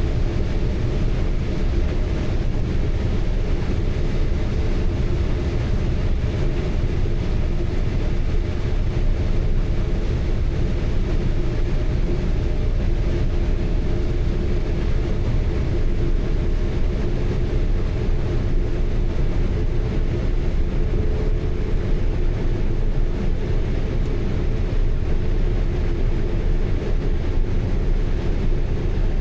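Large farm machine's diesel engine and drivetrain running steadily: an unbroken drone with a constant hum.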